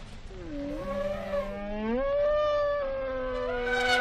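African elephants trumpeting: long, tonal calls that slide up and down in pitch, two or more overlapping, starting about half a second in.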